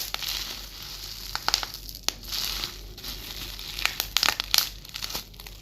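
Plastic bubble wrap being squeezed and crinkled, with a scatter of sharp pops as the bubbles burst in irregular clusters.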